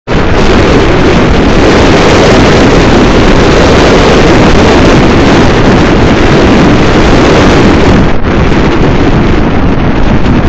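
Loud, steady wind rushing over the microphone of a camera riding on a moving car, with no let-up; the rush thins a little about eight seconds in.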